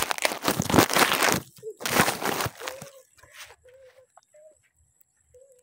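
Loud crunching and rustling close to the microphone for about the first three seconds, from tamarind pods being picked up and handled. After that it drops to quiet, with a few faint short calls and a thin, high, steady tone.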